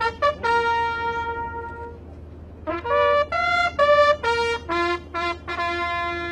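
Bugle call played on a single bugle: quick runs of short notes, twice ending on a long held note.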